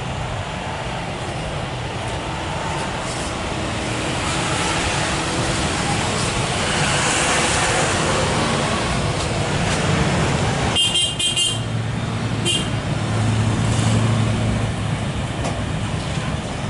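Steady roar of a Boeing 737's jet engines at low thrust as it taxis, mixed with road traffic, growing louder toward the middle. Two short toots come at about eleven and twelve and a half seconds in.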